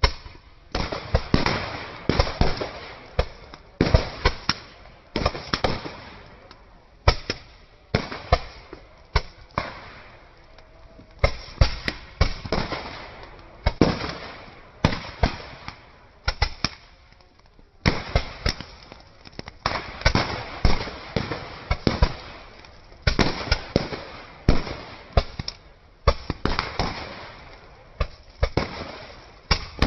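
Firecrackers going off one after another at an irregular pace, dozens of sharp bangs, some bunched in quick runs, each followed by a short crackling decay.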